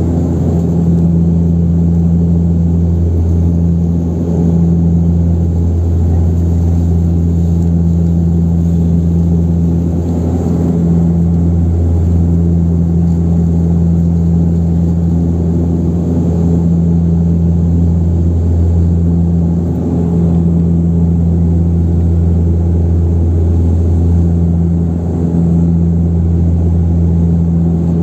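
Antonov An-24RV's Ivchenko AI-24 turboprop engines and propellers droning steadily in flight, heard inside the passenger cabin. The deep propeller hum wavers slowly in strength every few seconds.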